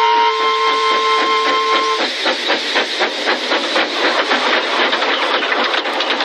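Steam locomotive chuffing in a quick, even rhythm. Held tones sound over it and stop about two seconds in.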